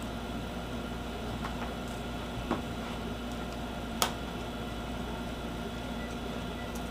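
A few light clicks and taps from small screws and plastic laptop parts being handled, the sharpest about four seconds in, over a steady low hum.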